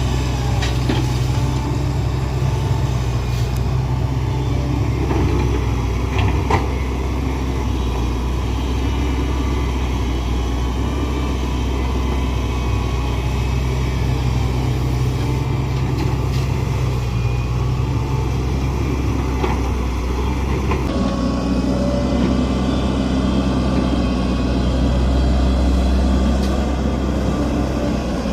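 Hitachi excavator's diesel engine running steadily, with a few sharp knocks; its engine note shifts about 21 seconds in.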